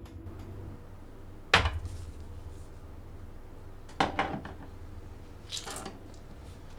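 Small metal parts of a CPU air cooler's mounting hardware being handled and set down: three sharp clinks, about a second and a half in, at four seconds, and a lighter rattle near six seconds.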